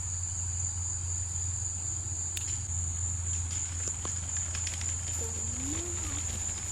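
Insects chirring in one steady, high-pitched trill, over a steady low hum and a few faint clicks.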